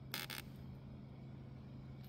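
Steady low hum, faint, with a short burst of hiss just after the start.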